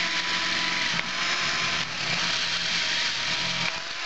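Hand-held power drill running steadily with a constant whine as its bit cuts through the metal wall of an air rifle's air tube, being pushed right through to the far side to drill a screw hole for the bottle adapter.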